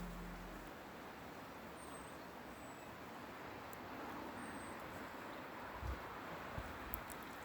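Faint steady outdoor hiss with a few brief, high, falling chirps, and a few soft low thumps near the end.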